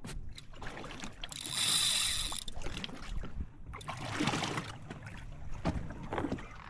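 Fishing reel's drag screaming as a hooked grouper pulls line, in a loud burst of about a second shortly after the start and another around four seconds in.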